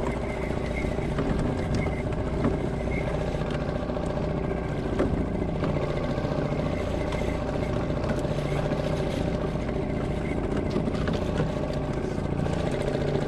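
Suzuki 2.5 hp single-cylinder four-stroke outboard motor running steadily on a kayak.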